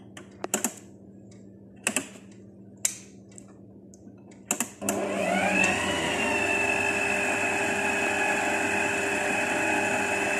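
A few sharp clicks and knocks, then about halfway through an electric stand mixer's motor switches on, its whine rising as it speeds up and then running steadily as the beater mixes flour, oil, salt and water into dough.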